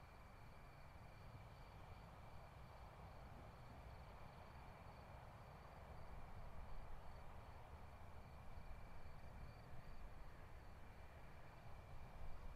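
Near silence: a faint steady hiss with a thin, high, steady whine running through it.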